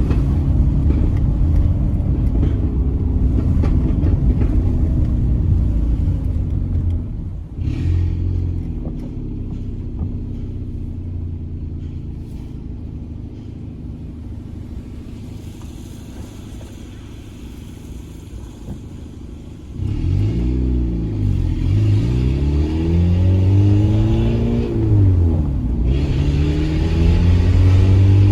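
Peugeot 206 1.4 eight-valve engine running through a straight-through exhaust with no catalytic converter, under way. It is loud on throttle at first, drops suddenly after about seven seconds to a quieter steady run, then from about twenty seconds in revs up and down several times before climbing again near the end.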